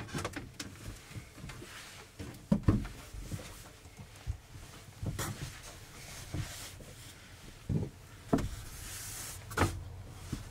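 Handling noise in a small wooden camper interior: a wooden tabletop being lifted and set aside, then seat cushions being shifted into place, giving about half a dozen separate knocks and thumps over a soft shuffle.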